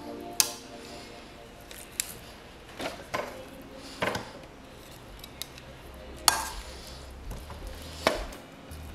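Metal kitchen tongs clicking and clinking against a glass baking dish as raw seasoned chicken drumsticks are set down in it. About seven sharp clinks at irregular intervals.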